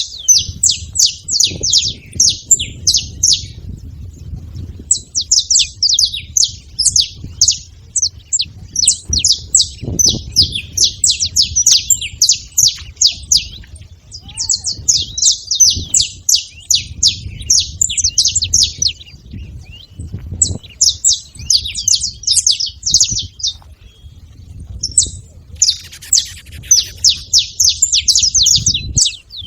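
A flock of saffron finches chirping and singing in rapid high chirps, coming in bursts of a few seconds with short pauses between, over a low rumble.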